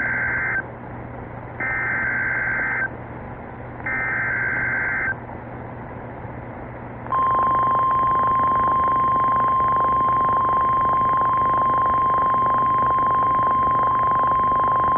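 NOAA Weather Radio EAS alert: three bursts of warbling SAME header data, about a second each with short gaps, then from about 7 s in the steady single-pitch 1050 Hz warning alarm tone. Together they signal a severe thunderstorm warning about to be read. Radio hiss and a low hum run underneath.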